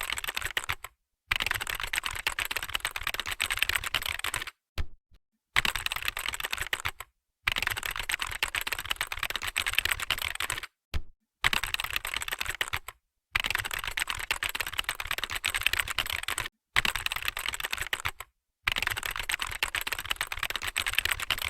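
Fast typing on a computer keyboard during a typing speed test, a dense run of keystrokes at about 61 words per minute, broken every couple of seconds by brief gaps.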